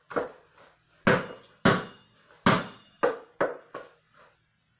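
A freshly inflated, firm basketball bouncing about seven times at an uneven pace, each bounce a sharp hit with a brief ring.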